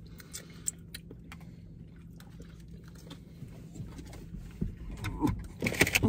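Quiet car cabin: a steady low hum with a few soft clicks of plastic spoons against ice-cream cups. In the last second a louder rustling rush builds.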